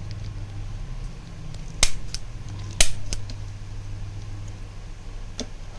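Manual spring-loaded chiropractic adjustment gun firing twice, about a second apart, each a loud sharp click followed by a fainter click, over a steady low hum.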